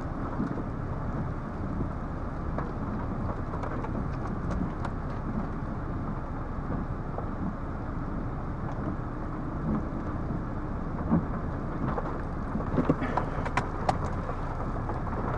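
Steady low rumble of storm wind on the microphone, with a few light ticks about twelve to fourteen seconds in.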